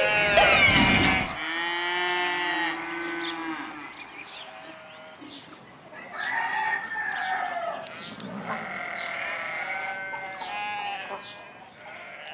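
Sheep bleating over and over, several calls following and overlapping one another. Upbeat music ends with a quick rising glide about a second in, just before the bleating.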